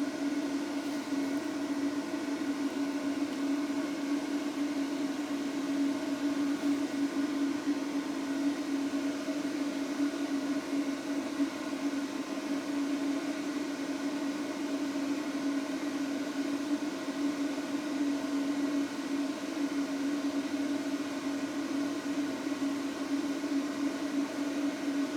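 Cooling fan of a Behringer Europro EP2000 power amplifier running steadily: a constant whir with a strong low hum, settling at about 56 dB on the sound level meter.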